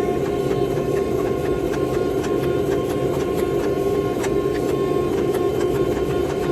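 Forge running: a steady, loud rushing noise with a low hum and a faint steady whine, sprinkled with sharp crackling clicks, as the billet is heated for forge welding.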